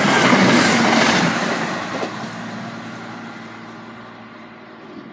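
CrossCountry Class 170 Turbostar diesel multiple unit passing close by at speed: a loud rush of rail and engine noise that fades away steadily from about a second in as the train runs off.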